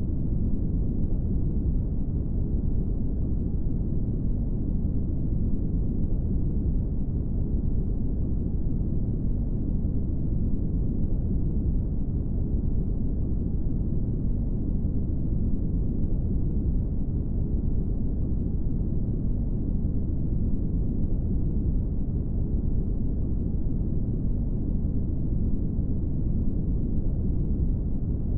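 Brown noise: a steady, deep rushing hiss, heavy in the lows and dark, with no high end and no change throughout.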